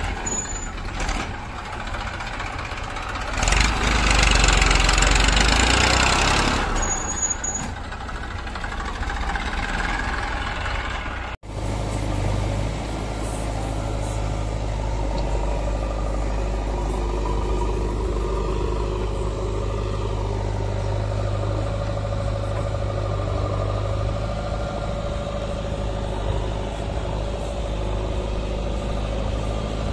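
Diesel engines of a Massey Ferguson 1035 tractor and a JCB 3DX backhoe loader running. The tractor is moving with its trolley and is loudest from about four to seven seconds in. After a sudden break about a third of the way through, the engines idle steadily.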